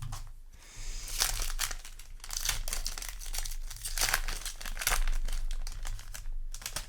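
Foil trading-card booster pack wrapper crinkling in a series of irregular crackles as it is handled and opened.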